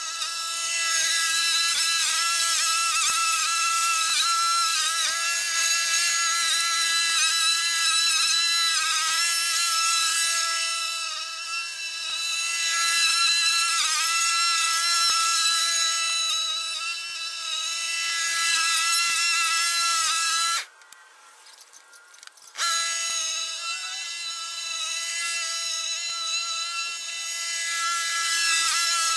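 Walk-behind lawn mower running, its sound sped up about fourteen times so that it becomes a high, steady buzz like a bee. It cuts out for about two seconds late on, then comes back.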